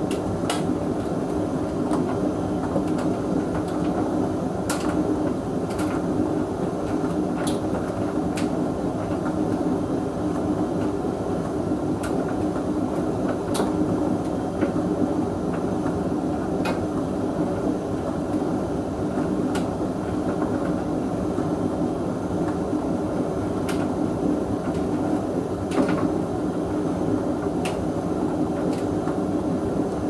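Hoover VHV680C vented tumble dryer running a Cupboard Dry cycle on mixed fabrics: a steady hum of the turning drum and fan, with scattered sharp clicks from the tumbling load.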